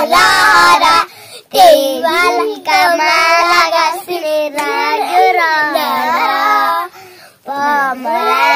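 Young girls singing a Nepali song together, unaccompanied and loud, with two short breaks, about a second in and near the end.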